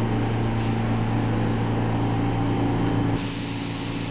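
R46 subway train standing at a station, its equipment giving a steady low hum with a higher tone above it. About three seconds in the hum cuts out and a steady hiss takes over.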